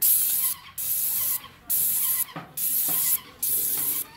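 Titan 440 airless paint sprayer's gun hissing as it atomises paint, in five bursts of roughly half a second each with short breaks as the trigger is pulled and released.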